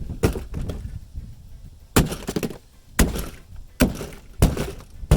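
A hammer smashing a plastic drone and its controller: a string of sharp blows, about five, roughly a second apart after a first one at the start, each with a brief crack of breaking plastic.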